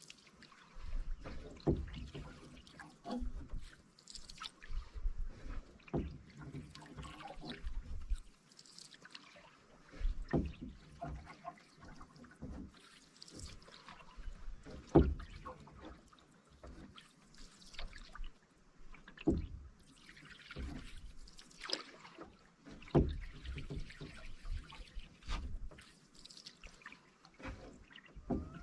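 Canoe paddling on calm water: a paddle dips and pulls about every four seconds, with water trickling and dripping off the blade between strokes.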